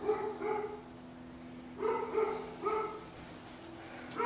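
A dog barking in short groups of two or three sharp barks, over a steady low hum.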